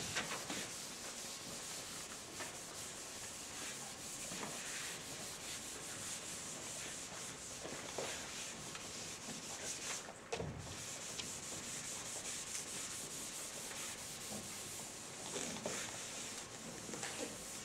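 Chalkboard eraser rubbing steadily back and forth across a blackboard, wiping off chalk writing, with a brief pause about ten seconds in.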